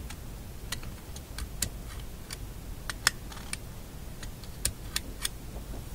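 Irregular sharp clicks and taps, roughly two or three a second, as a magnet is stroked over and over across the internal magnet of a Philco shadow meter (tuning meter) to re-magnetize it.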